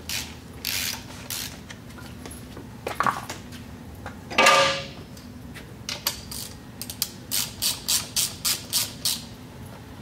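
Hand ratchet with a socket on an extension driving screws into the threaded lifter holes of a Mud Buddy Sport V transmission cover to jack the cover off, heard as short bursts of ratchet clicking. A single louder squeak comes about halfway, and near the end a quick run of strokes at about four a second.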